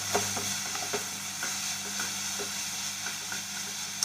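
Chopped cabbage, carrot and beans sizzling in hot oil with garlic over a full flame while a spatula stirs them. It scrapes and taps against the pan about once a second over a steady frying hiss.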